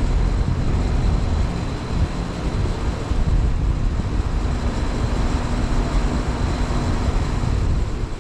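A 5-ton Lennox Elite XC14 central air conditioner's outdoor unit running steadily: the scroll compressor and condenser fan make a continuous rushing hum with a heavy low rumble, and a faint steady tone is heard in the middle stretch.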